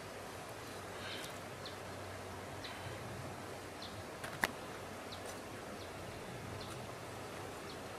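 Large knife cutting into a big catfish behind the head, with one sharp click about four and a half seconds in, over a steady outdoor hiss with scattered faint short chirps.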